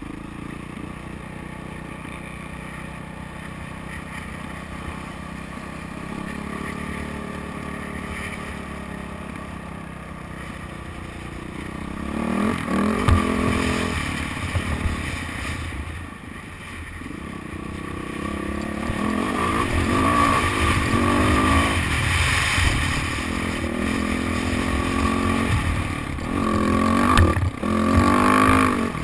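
Motocross bike engine recorded close up on a GoPro while riding the track: it runs fairly steadily at first, then from about twelve seconds in revs up and down again and again, pitch rising and falling as it accelerates and backs off.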